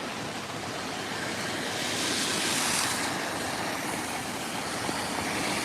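Steady rain hiss, with tyres swishing on the wet road as a vehicle passes, swelling about two to three seconds in.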